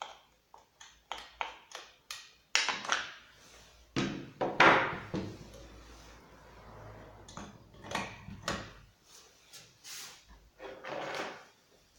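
Hand-handling noises from a Husqvarna chainsaw being reassembled on a wooden workbench: a string of clicks and knocks as the steel guide bar is fitted onto the saw body. The loudest moment is a thump with a second of scraping about four seconds in.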